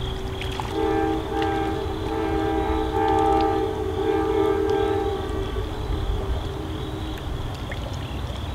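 An Amtrak passenger locomotive's air horn sounding one long chord of several notes, heard across the water. It starts about a second in and fades over the last few seconds, over a steady low rumble.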